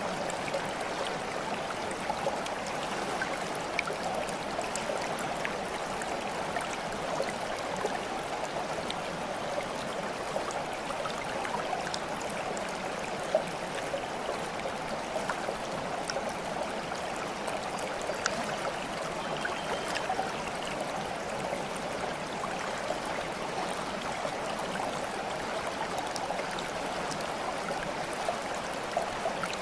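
Running water like a small stream: a steady babble with scattered small plinks and splashes.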